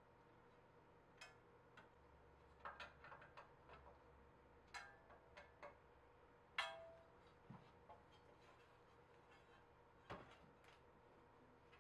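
Faint, scattered clicks and metallic taps from a screwdriver working screws into an aluminium channel, with one sharper tap that rings briefly a little past halfway, over a faint steady hum.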